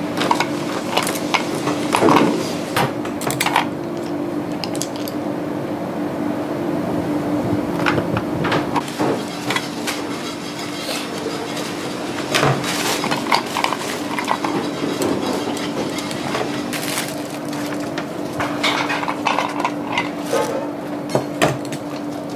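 Restaurant kitchen work: scattered clinks and knocks of dishes, utensils and wooden surfaces being handled, over a steady hum.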